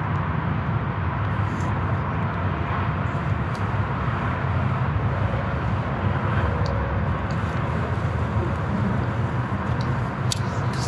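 Steady low rumble of outdoor background noise, with a few faint, brief high clicks.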